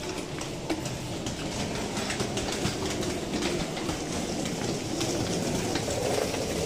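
A wheeled suitcase rolling over stone paving, its wheels rumbling and clattering over the joints between the slabs, mixed with footsteps. It grows a little louder toward the end as the suitcase passes close by.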